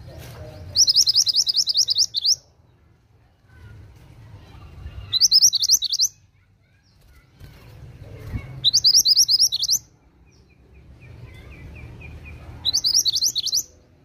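Scarlet minivet (mantenan) singing: four loud bursts, each a rapid string of about ten high, sweeping notes lasting a second or so, coming about every four seconds, with a softer, lower phrase between the last two.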